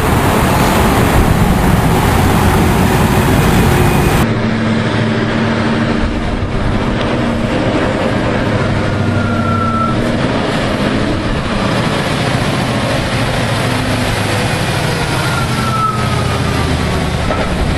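Heavy truck's diesel engine running, at first under a blast of wind noise. After a sudden cut about four seconds in, the engine runs steadily with a faint high whine that comes and goes twice.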